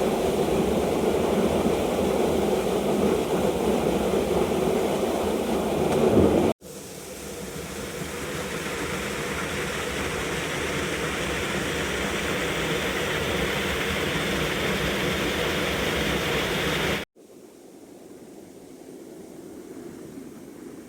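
Mountain stream water rushing steadily, in three separate takes cut together: loud and deep at first, brighter after a cut about six seconds in, and quieter after another cut near the end.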